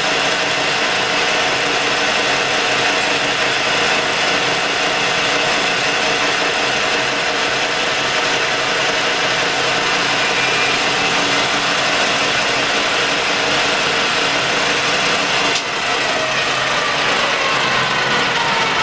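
Colchester lathe running in reverse, its headstock gears whining steadily while a single-point tool cuts a 4-degree taper on the back of a spinning workpiece. About three-quarters of the way through the sound changes abruptly and the whine falls steadily in pitch.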